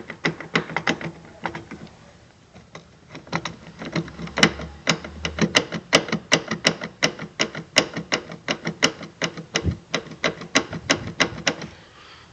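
Fiat Palio's left seat-belt retractor knocking over and over, about three knocks a second, fainter at first and louder from about four seconds in. The knock comes from play in the retractor's internal mechanism, and it is the cause of a loud rear knocking noise while driving.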